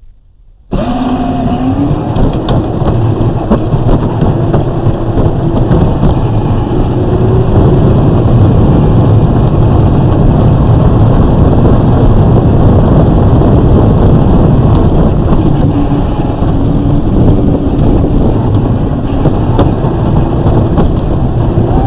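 Battery-powered Power Wheels ride-on toy car driving on pavement, heard from a camera mounted on the car: a loud, steady rumble of the hard plastic wheels rolling, with a faint whine from the electric motor and gears. The sound starts suddenly about a second in, and the whine rises briefly as the car gets going.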